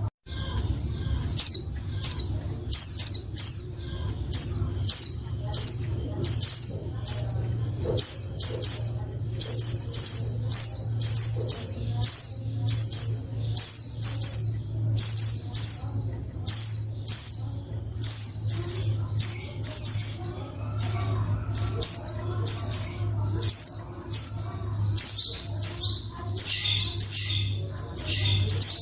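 Female white-eye (pleci) calling: short, high chirps in quick clusters, repeated over and over without pause, the call used to provoke males into singing. A steady low hum runs underneath.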